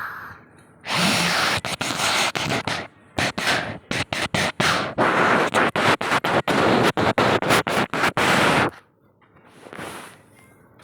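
Wind noise: air rushing over the microphone as a loud hiss that comes in gusts and cuts in and out rapidly, from about a second in until near the end.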